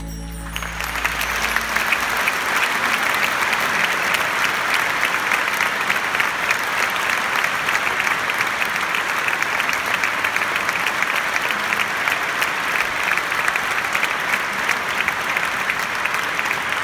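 Large audience in a concert hall applauding: dense, steady clapping that breaks out about half a second in. The orchestra's last held chord dies away underneath it.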